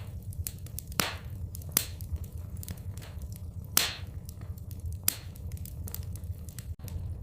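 Fire in a fireplace crackling, with irregular sharp pops scattered through and a few louder snaps, over a steady low rumble.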